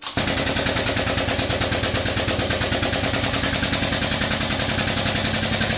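The powered pump of a 20-ton shop press running with a rapid, steady mechanical chatter, about ten pulses a second, starting abruptly, as the press pushes a polyurethane leaf-spring bushing out.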